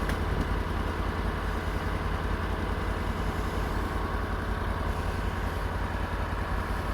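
Engine idling steadily with a low, rapid throb.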